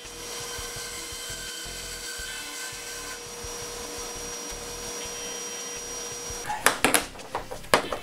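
WEN 9-inch benchtop bandsaw running with a steady whine while it cuts through PVC pipe. The whine stops about six and a half seconds in, and a few sharp knocks follow near the end.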